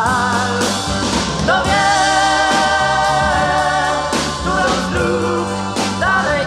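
Recording of a 1960s Polish big-beat ballad playing: voices hold long notes with vibrato, sliding up into new notes a couple of times, over the band's steady bass and drums.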